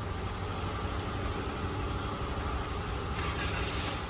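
Car engine idling with a steady low rumble, joined by a brief hiss near the end.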